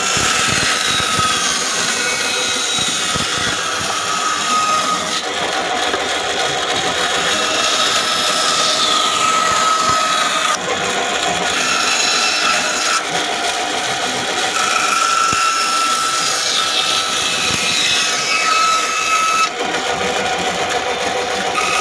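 Band saw running and cutting through a thick block of wood along a curve: a steady machine whine with a high note that comes and goes as the blade works through the cut.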